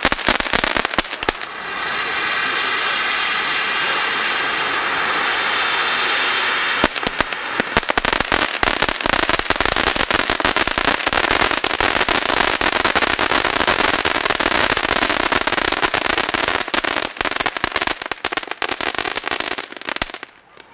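Two Jorge SOS ground firework fountains burning. A steady hissing rush of sparks fills the first several seconds, then dense crackling starts about seven seconds in and runs until the sound cuts off shortly before the end.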